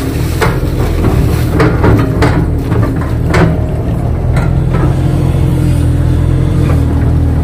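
Kato crawler excavator's diesel engine running steadily under load, heard from inside the cab. Several sharp knocks come in the first half as the bucket works mud on the levee, and the engine runs on evenly as the boom lifts and swings.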